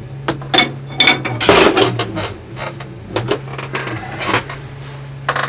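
Tools and small hard objects clinking, knocking and being shifted around on a cluttered workbench while someone rummages for a tool: a dozen or so sharp knocks, with a longer scraping, rustling stretch about a second and a half in.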